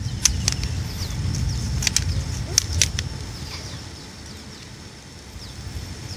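Wind buffeting the microphone: a low rumble that fades after about three seconds, with a few sharp clicks in the first three seconds.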